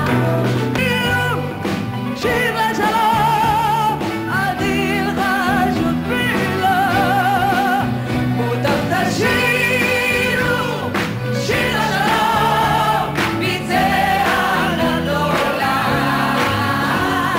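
A large group of men and women singing a Hebrew song together, with vibrato on held notes, over piano and band accompaniment.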